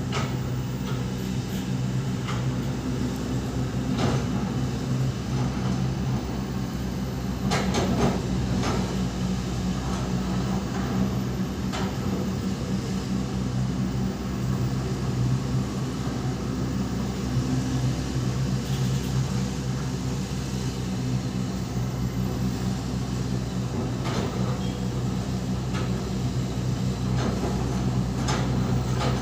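Excavator engine running steadily, with a few short knocks scattered through.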